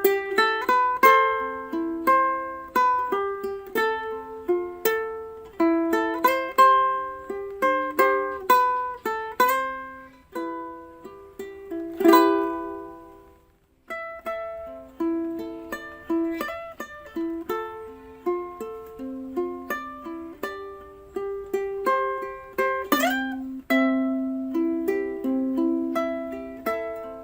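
Background music: a light tune of quick plucked-string notes. About twelve seconds in it rings out on one chord and fades to a short gap before the melody starts again.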